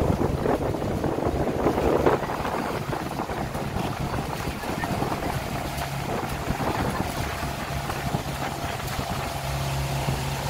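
Engine of a motorised outrigger boat running steadily as a low hum, under wind on the microphone and water rushing past the hull. The wind and water noise is loudest for the first two seconds, then evens out.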